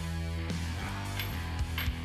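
Background rock music with guitar and a steady beat. Two faint clicks sound over it in the second half.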